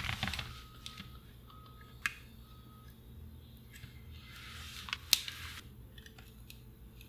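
Soldering on an old transistor radio's circuit board. There is a short crackle of flux sizzling under the iron at the start and a sharp tick about two seconds in. Around four to five seconds a soft hiss builds with a sharp click in it, as the hot iron and desoldering braid work a capacitor lead.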